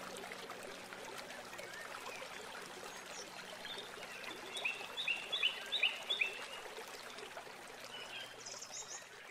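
Running water, like a babbling stream, with birds calling over it. A bird sings a quick run of short, high notes about five seconds in, and the sound grows fainter near the end.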